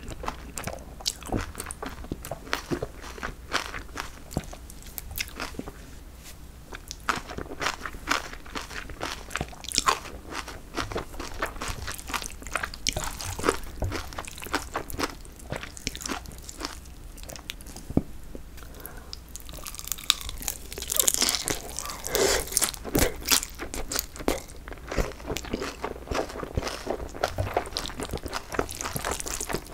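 Close-miked eating of jjolmyeon, spicy cold chewy noodles with bean sprouts: a long run of wet crunching, chewing and biting, with noodle slurps and chopsticks stirring the sauced noodles in the bowl. The clicking is busiest and sharpest about two-thirds of the way in.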